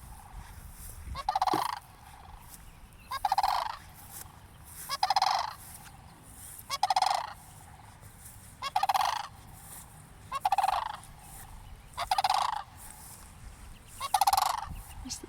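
Cranes calling: about eight loud calls, one every couple of seconds, each lasting about half a second.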